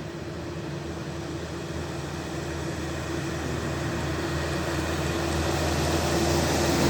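Diesel engine of a heavy multi-axle tronton truck running under load as it climbs a steep grade, growing steadily louder as it approaches.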